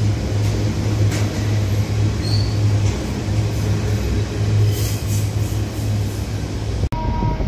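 Container freight train rolling past: a steady low drone with a few faint clicks from the wagons. Near the end it breaks off suddenly and a different train sound takes over.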